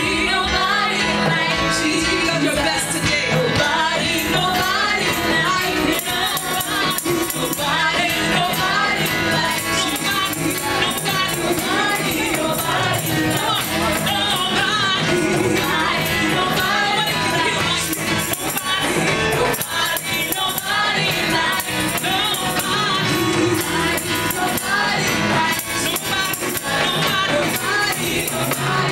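Live gospel praise-and-worship song: a woman sings lead on a microphone with a small group of backing singers, over keyboard, drums and steady rhythmic percussion, played through a PA.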